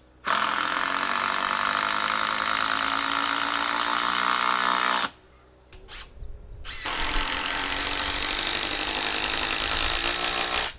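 Impact driver running in two long bursts of about four to five seconds each, with a short pause between, driving fasteners into the posts of a log shelter frame.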